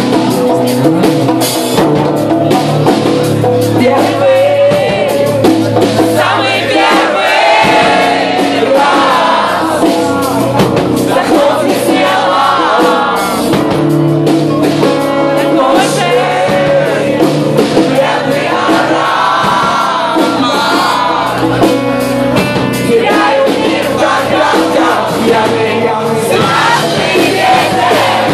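Rock band playing live in an acoustic arrangement, with a singer over the instruments and a steady beat.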